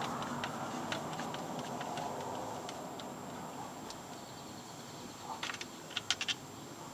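Light metallic clicks and taps of hand tools and door-latch parts being handled and worked loose, sharper and closer together near the end, over a steady low background hum.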